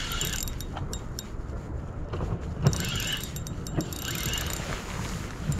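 Fishing rod and reel handled and wound while playing a hooked cod: small mechanical clicks and rattles over a steady low rumble.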